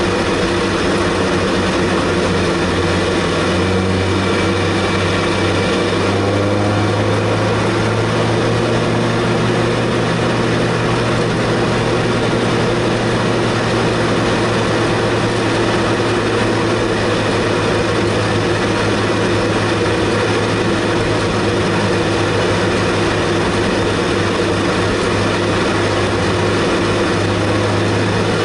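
Race car engine heard from inside the cabin, running steadily at moderate revs with tyre and road noise while cruising in line under the safety car. The pitch shifts slightly a few seconds in, then holds steady.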